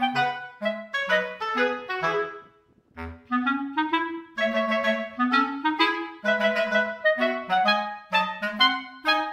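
Instrumental background music: a melody of short, separate notes that pauses briefly about two and a half seconds in, then carries on.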